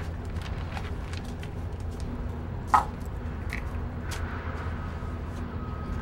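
A steady low machinery hum with light clicks and knocks of brushes and cans being handled in a plastic toolbox; the loudest is a single sharp, ringing clink almost three seconds in.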